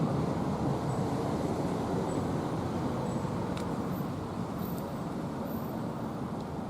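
Steady low outdoor rumble with no bird calls, easing slightly toward the end; a couple of faint clicks about halfway through.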